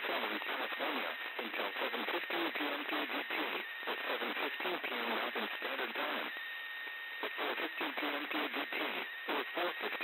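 NOAA Weather Radio broadcast on 162.500 MHz picked up on a software-defined radio: a voice reading through heavy static and hiss, with a faint steady whistle. The voice breaks off for about a second partway through, leaving only the hiss and the whistle.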